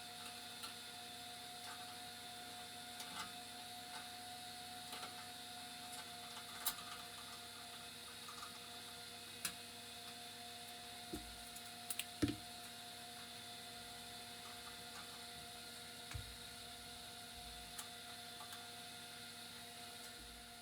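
Faint steady electrical hum with a few scattered faint clicks and taps, a couple of them a little louder about twelve seconds in.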